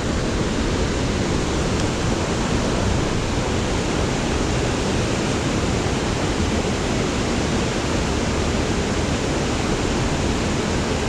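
Steady rushing of flowing creek water, an even unbroken noise with no separate splashes.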